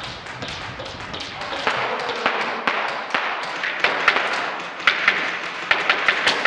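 Airsoft guns firing: scattered, irregular sharp pops and clicks, coming faster and louder in the second half, including a quick cluster near the end.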